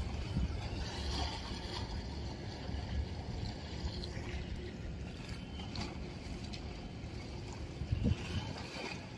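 Steady low rumble of a large ship's engines as it moves through a harbour, with a brief knock about eight seconds in.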